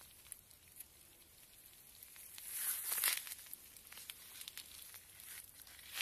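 Grapevine leaves rustling and crinkling close to the microphone as it brushes through the vine row, with scattered light clicks and a louder swell around the middle.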